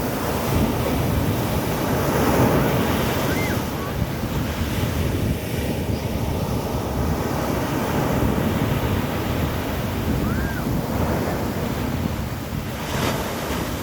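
Sea waves breaking and washing up on the beach, the surf swelling and ebbing, with wind rumbling on the microphone.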